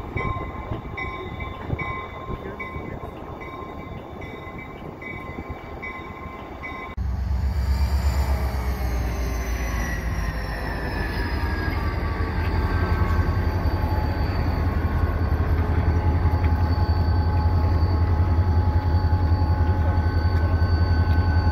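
CSX diesel-electric yard locomotives running: first a unit approaching at a distance, then, after a cut about seven seconds in, a locomotive passing slowly right below, its engine a loud, steady low throb with a whine falling in pitch.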